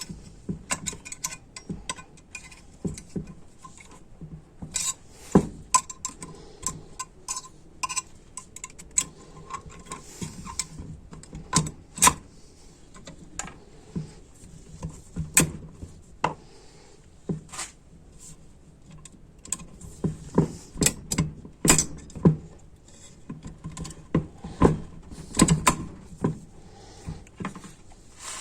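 Metal transmission valve body parts clicking and clinking as they are handled and fitted together by hand, in irregular sharp knocks, some much louder than others.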